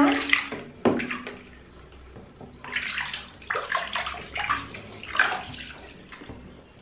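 Water splashing and sloshing in a plastic baby bathtub as a hand scoops and swishes bathwater over a baby, in uneven splashes.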